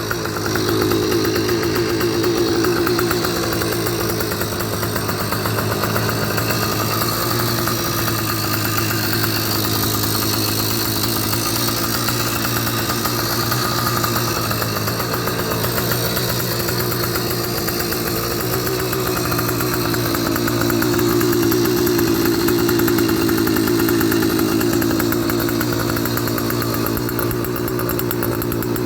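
80cc two-stroke motorized-bicycle kit engine idling steadily, its speed sagging slightly in the middle and picking up again about two-thirds of the way through.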